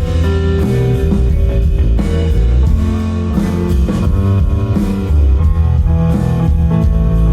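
Live band music: guitar playing over bass and drums.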